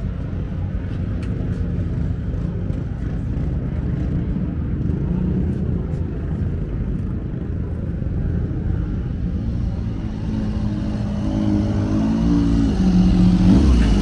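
Vintage motorcycle engines running in a steady low rumble. In the last few seconds one engine grows louder, its note wavering up and down.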